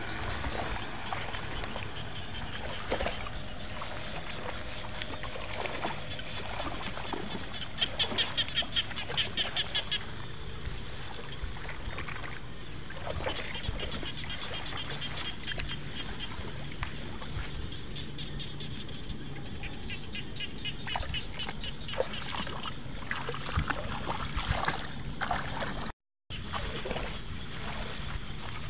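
Night chorus of frogs and insects: a steady high-pitched insect whine under frogs calling in runs of rapid pulses, loudest about eight seconds in. A few light knocks come from fishing gear being handled.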